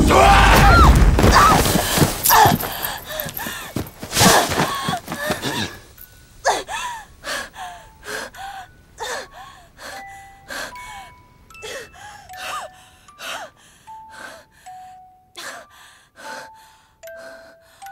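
A woman gasping for breath, out of breath. It is heavy and ragged for the first few seconds, then settles into short separate gasps about one to two a second. Single high chime-like notes sound between the gasps.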